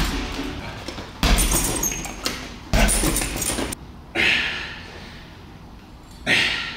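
Three heavy impacts, each a sudden hit with a deep thud, about a second and a half apart, followed by two sharp breathy bursts, like forceful exhalations.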